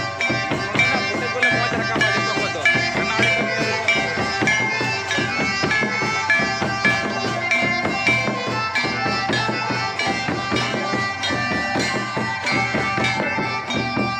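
Santali Dong folk dance music: drums keep a steady beat under a sustained melody.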